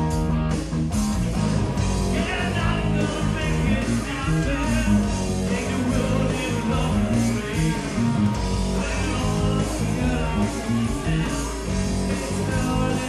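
Rock band playing live: electric guitars, bass guitar and drum kit, with a male singer.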